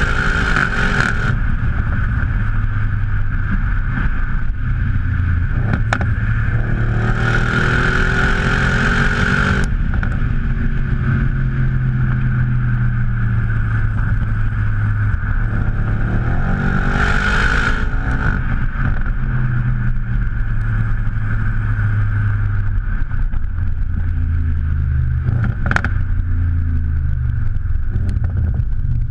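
Audi RS6 C7's twin-turbo V8 heard close at the tailpipe of its HMS aftermarket exhaust while driving, the engine note rising and falling as it pulls through the revs. A loud rushing noise swells in during the harder pulls, about seven and seventeen seconds in.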